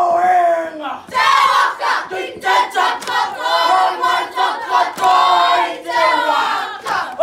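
A mixed group of children and adults performing a haka: loud Māori chanting in unison, delivered in shouted phrases with short breaks between them.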